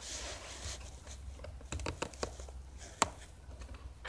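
Close handling noise: rustling, then a few light clicks and one sharp click about three seconds in, over a low steady hum.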